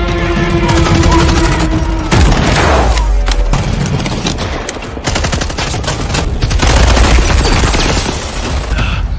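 Rapid bursts of automatic gunfire from a movie shootout, shot after shot in quick succession, with a film score underneath.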